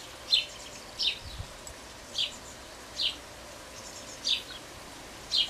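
A bird calling repeatedly in the garden: short, high, falling chirps, about one a second.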